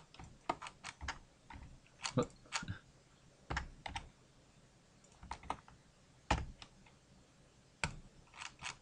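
Computer keyboard keystrokes at irregular intervals, single taps and quick runs of two or three, as modelling shortcut keys are pressed.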